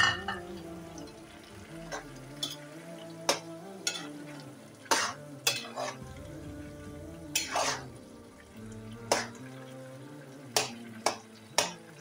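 Metal spoon stirring peas into a simmering potato-and-spinach curry in a steel pan, scraping and knocking against the pan about a dozen times at irregular intervals, over the low sizzle of the simmering pot.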